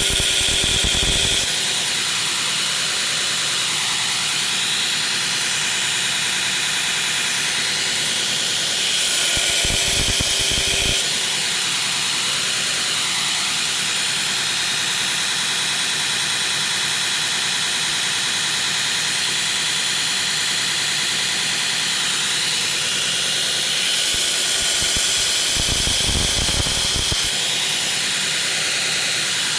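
Belt grinder running steadily with a coarse 36 grit belt as a steel knife blade is ground against it to form the bevels. The sound deepens for a few seconds three times: at the start, about ten seconds in, and near the end.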